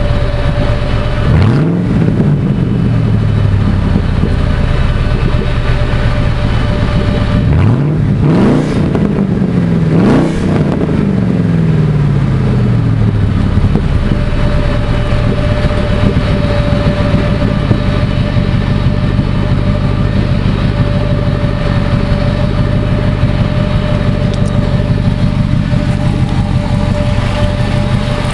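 2003 Ford SVT Lightning's supercharged 5.4-litre V8 idling through a straight-piped side exhaust (stock manifolds and cats only). It is blipped three times, once about a second and a half in and twice around the eight- and ten-second marks, each rev rising and falling back to idle, with a steady thin whine under the idle in the second half.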